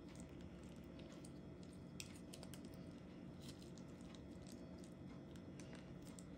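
Near silence: a faint steady low hum with a few faint soft ticks and rustles as paper ketchup packets are squeezed out by hand.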